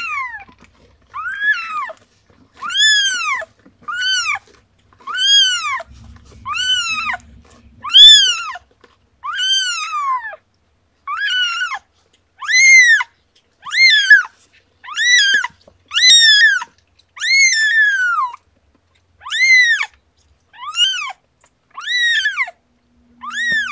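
A young kitten about ten days old crying over and over: high-pitched mews, each rising then falling in pitch, repeated about once every second and a half.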